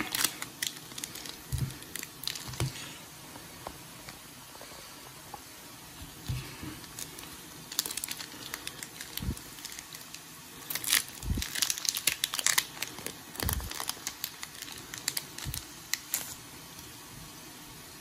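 Foil booster-pack wrapper being torn open and crinkled by hand, in several bursts with pauses between, the busiest stretch past the middle. A few soft thumps come in between.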